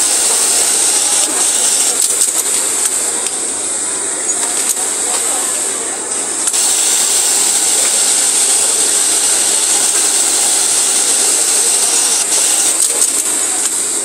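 Steady machinery noise of a garment factory floor with a high hiss, and a few light clicks from a snap button attaching machine setting brass eyelets into fabric.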